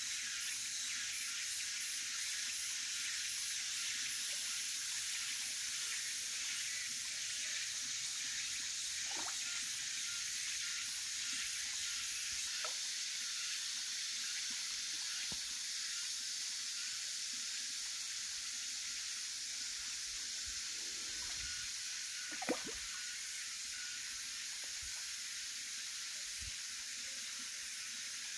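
Steady high-pitched outdoor hiss with a faint fast pulsing in its top end during the first part, and one short sharp knock about twenty-two seconds in.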